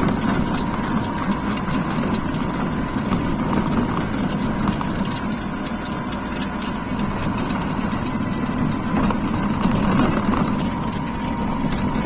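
Steady rumble and road noise of a vehicle moving along a rough paved road, with small ticks from the surface throughout.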